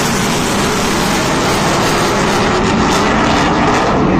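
Military aircraft flying overhead: a loud, steady engine roar that cuts off suddenly at the very end.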